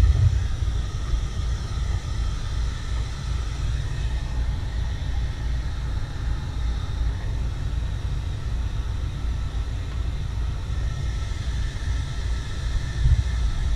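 Wind buffeting the microphone, a steady low rumble, over the faint steady hiss of a heat gun running.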